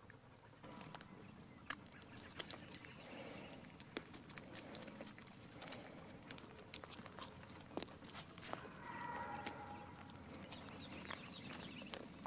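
Goats nibbling usnea lichen from a hand: faint scattered clicks and crunches, with a short animal call about nine seconds in.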